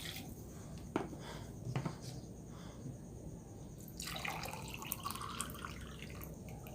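Water being poured from a glass into a cooking pot, a splashing pour about four seconds in that lasts about a second and a half, with a couple of light knocks and drips before it.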